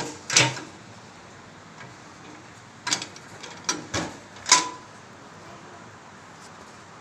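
Stainless-steel lid of a vertical autoclave being put on and closed over its chamber: about five sharp metal knocks and clanks, one just after the start and the rest between three and five seconds in, the last and loudest ringing briefly.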